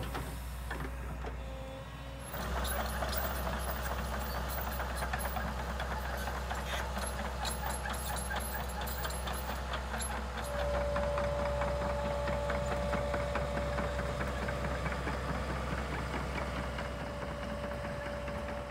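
Tracked excavator working: the engine drones steadily under clanking and rattling from the bucket and tracks. About ten seconds in, a steady high tone joins and holds.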